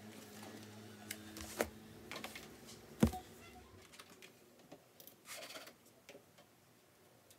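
Books and folders handled and set down with light knocks, one sharp knock about three seconds in as the stack is put down. Then a short rustle as the laptop is opened, and a few light taps on its keyboard.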